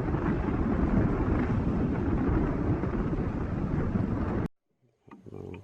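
A vehicle on the move: steady engine, road and wind noise from riding along. It cuts off abruptly about four and a half seconds in, leaving a short faint stretch.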